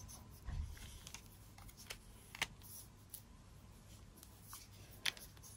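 Faint handling of wooden yarn-winder parts being screwed together by hand, with a few light clicks and knocks of wood on wood, the clearest about halfway and near the end.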